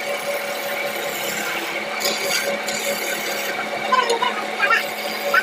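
Wood lathe running with a steady hum while a hand-held chisel shaves the spinning wooden blank, a rough scraping hiss that swells and fades as the tool cuts.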